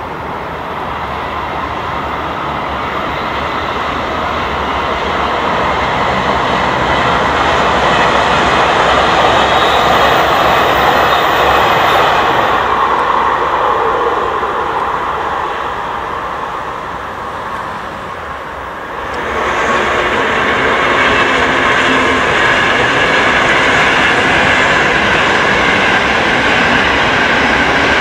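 Italian high-speed electric trains, an Italo and then a Frecciarossa ETR500, passing at speed: a loud, steady rush of wheels on rail and air that builds, eases off, then swells again abruptly about two-thirds of the way through as the next train comes by.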